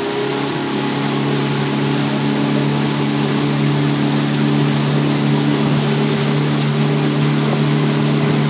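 Motorboat engine running steadily at cruising speed while towing, its note settling in the first half second and then holding even, over a steady hiss.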